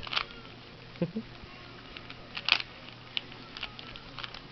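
Plastic clicks and clacks of a 3x3 Rubik's Cube being twisted to scramble it, irregular, with one louder clack about halfway through.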